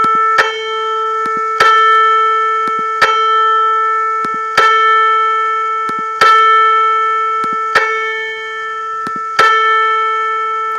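A4 piano note on two strings in unison (about 440 Hz), struck again about every second and a half and ringing down each time, with faint short clicks between the strikes. One string is being nudged a step at a time to bring the pair back to a clean, beat-free unison.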